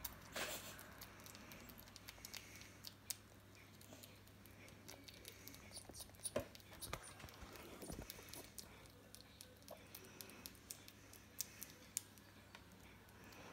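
Baby grey squirrel nibbling cake: faint, irregular small clicks of its teeth over low room tone.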